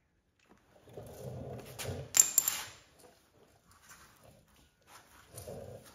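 Hand work with metal tools and parts at an engine's timing-belt end: rustling and handling with two sharp metallic clicks a little over two seconds in, then smaller knocks.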